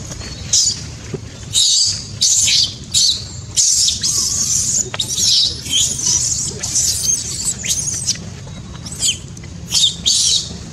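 Infant macaque squealing: a string of thin, high-pitched squeaks and short shrill cries, some sliding in pitch, coming about once or twice a second with brief gaps.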